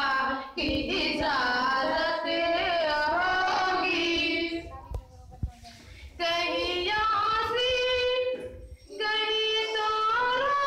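A young girl singing an Urdu naat solo into a microphone, with long held, ornamented notes. The singing comes in three phrases, with short breaks about five and eight and a half seconds in.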